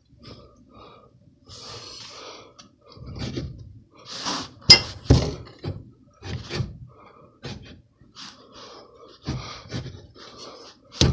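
Metal clinks, scrapes and knocks of a Honda Civic's rear strut and adjustable spring assembly being forced into place, with strained, effortful breathing as the part resists. A sharp metallic knock comes about halfway through and another near the end.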